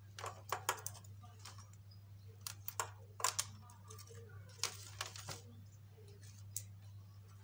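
Irregular light clicks and taps, some in quick clusters, from small plastic tubing and a small screwdriver being handled on a glass tabletop, over a steady low hum.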